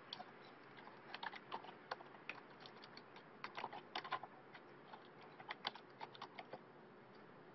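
Faint typing on a computer keyboard: irregular key clicks coming in short runs.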